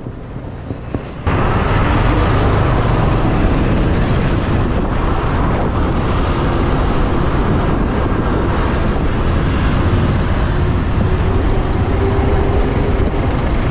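Riding on a motorbike through city traffic: a steady rush of the bike's engine, road noise and passing cars and buses, jumping louder about a second in.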